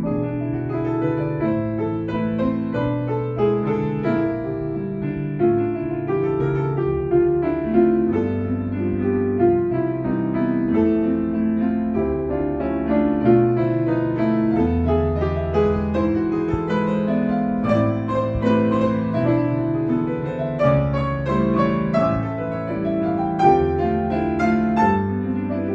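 Piano playing a continuous flowing passage of notes over changing bass notes.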